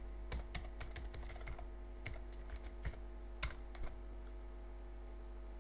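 Computer keyboard being typed on, a quick run of key clicks for about four seconds with one louder click near the end of the run, over a steady low electrical hum that carries on alone afterwards.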